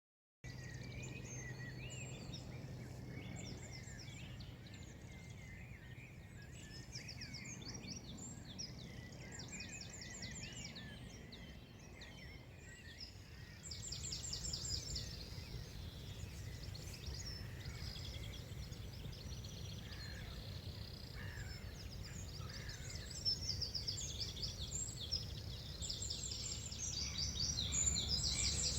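Several songbirds singing at once, with rapid repeated trilling notes that grow louder about halfway through, over a low steady hum in the first part.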